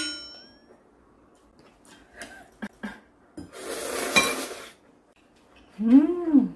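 Tableware at a meal: a sharp ringing clink of a utensil against a dish at the start, a few light clicks, and about a second of scraping noise. Near the end comes a short, loud closed-mouth "mmm" whose pitch rises and falls, as from someone tasting food.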